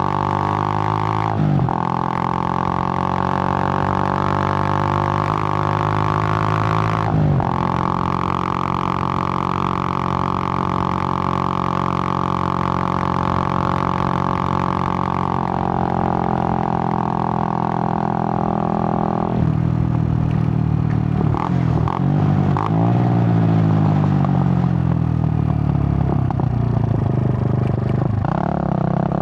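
Suzuki GN125's single-cylinder four-stroke engine running under way, a steady drone with short breaks for gear changes near the start. In the last third the engine note repeatedly falls and rises again.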